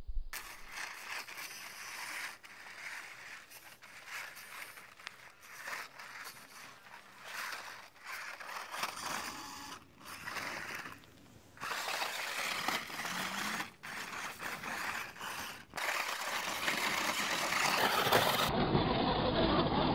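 Radio-controlled rock crawler working its way over rock: scraping and grinding of tyres and chassis on stone along with its small drive motor, cut off abruptly and resumed several times.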